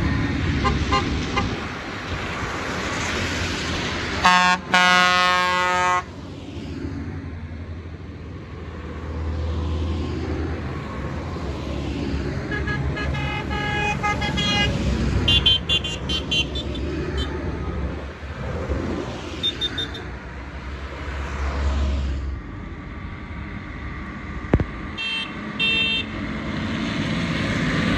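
Tractors driving past one after another on a wet road, their engines rumbling and swelling as each goes by over the hiss of tyres. Vehicle horns are tooted several times: a loud blast of about two seconds some four seconds in, a run of honks around the middle, and a couple of short toots near the end.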